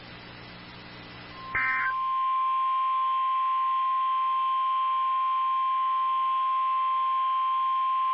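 NOAA Weather Radio warning alarm tone: a loud, steady single-pitch tone of about 1050 Hz that starts about one and a half seconds in, just after a short higher chirp, over faint radio hiss. It signals that a new warning broadcast is about to follow.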